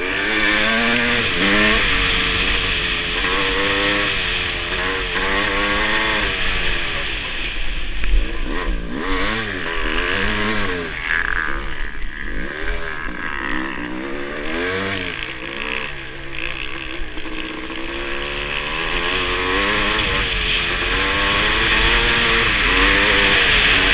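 Kawasaki KX500 two-stroke single-cylinder motocross engine under hard riding on ice, its note climbing and dropping again and again as the throttle is opened and closed through the corners, over a steady hiss.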